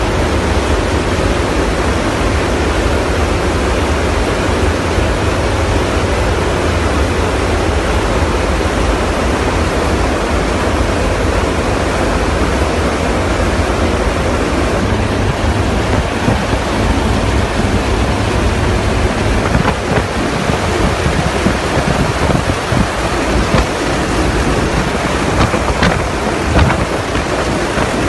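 Loud, steady rush of wind and engine noise in a transport aircraft's cargo hold with the rear ramp open in flight. Uneven low rumbles from wind buffeting the microphone come in the second half.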